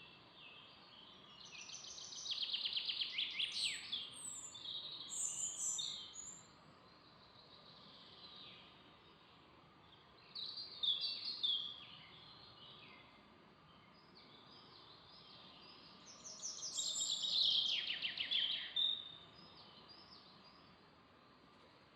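Songbirds singing: three bursts of song, each with fast trills, separated by quieter pauses, over a faint steady hiss.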